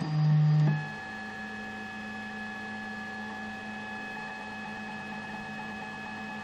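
Zortrax M200 3D printer running its motors: a loud low buzz for under a second, then a steady whine of several held tones.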